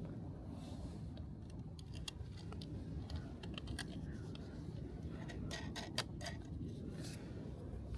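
Scattered light clicks and small rattles of hand-handled hardware, a cluster of them about two-thirds of the way through, over a steady low hum.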